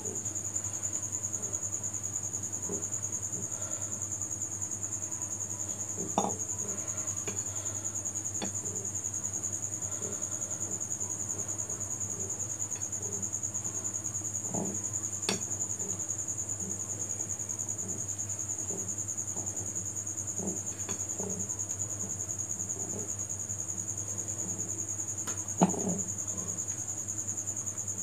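Silicone spatula folding flour into egg batter in a ceramic bowl: soft, regular stirring strokes with three sharper taps against the bowl, about 6, 15 and 26 seconds in. A steady high-pitched shrill drone and a low hum run underneath.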